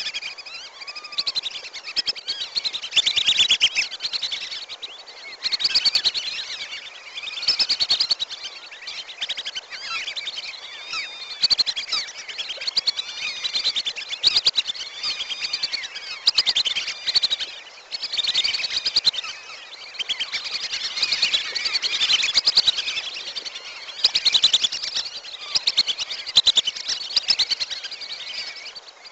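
A flock of wandering whistling ducks calling together: many overlapping high, wheezy whistles that swell in surges every couple of seconds. It is a bird-lure recording made to draw the ducks in.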